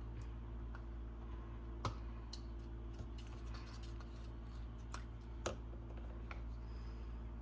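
Scattered light clicks and taps of small parts and hand tools being handled during a bench repair of an RC truck's motor mount, two sharper clicks about two seconds and five and a half seconds in, over a steady low hum.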